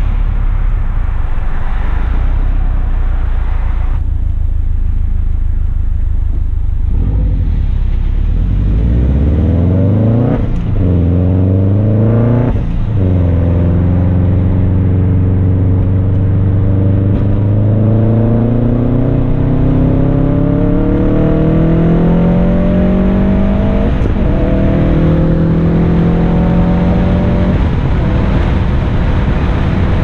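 Straight-piped 2008 Subaru Impreza WRX STI's turbocharged 2.5-litre flat-four, through a Tomei Expreme Ti titanium exhaust, rumbling low at light throttle for several seconds, then revving up from about eight seconds in. Two quick gear changes come about ten and thirteen seconds in, then a long, steady climb in revs with brief breaks near the end.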